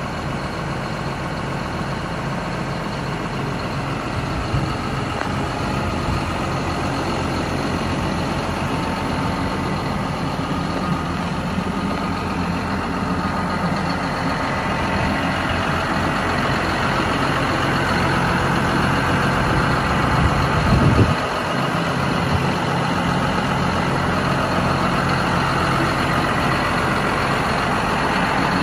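John Deere 7215R tractor's six-cylinder diesel engine idling steadily, growing slightly louder toward the end, with a brief louder low rumble about three-quarters of the way through.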